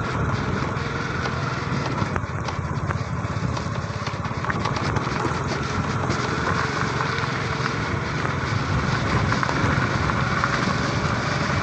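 Motorcycle engine running steadily under way, a low, rapid pulsing drone mixed with the rush of riding.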